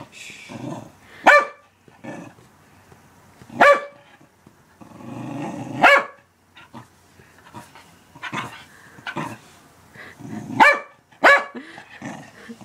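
A dog barking at a stuffed penguin toy it wants: about five short, sharp barks a few seconds apart, with low grumbling growls between them.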